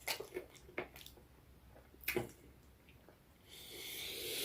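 Close-up wet mouth sounds of someone eating: a few sharp smacks and clicks of chewing, then a hissing, drawn-in breath or slurp that builds over the last second or so.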